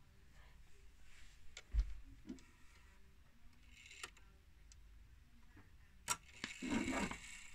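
Faint, irregular clicks from a mantle clock's chime movement, with a louder click about six seconds in and a short rattle near the end.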